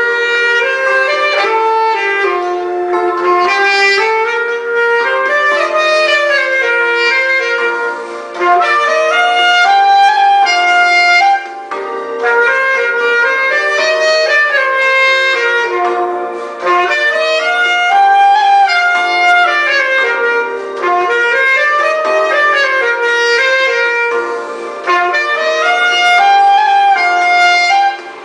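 Yamaha YAS-62 alto saxophone, played with a metal mouthpiece and a Vandoren Java reed, playing a smooth-jazz melody in phrases of a few seconds over a sustained backing accompaniment.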